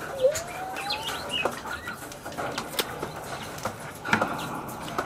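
Poultry shears snipping through a coturnix quail's neck, with several sharp clicks, the loudest just after the start. A bird gives a short rising call near the start, and farm fowl chirp faintly around it.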